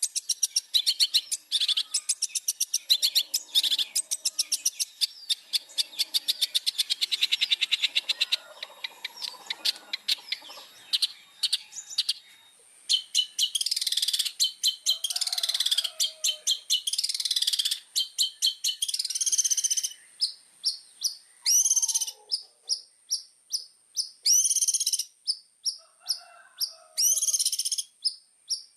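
Long-tailed shrike (cendet) singing hard: first a fast run of sharp repeated chattering notes, then varied scratchy and gliding phrases broken by short gaps. A thin steady high tone runs under the second half.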